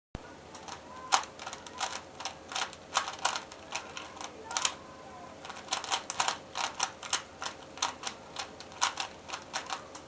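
Rapid, irregular clacking of a 3x3 Rubik's Cube's plastic layers being turned by the fingers during a speedsolve, the turns coming in quick runs with short pauses between.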